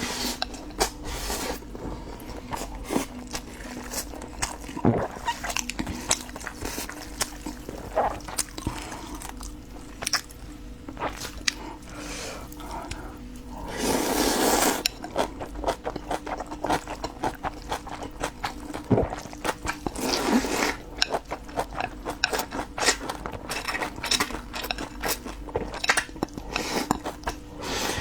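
Close-miked mukbang eating: a person chewing and smacking mouthfuls of glass noodles and rice, with many short wet clicks. There is a longer slurp about 14 s in and a shorter one around 20 s.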